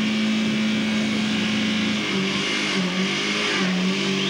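Portable fire pump's engine running at high revs, its pitch holding steady and then dropping a little and wavering from about halfway through, as it pumps water into the hoses during a firefighting competition attack.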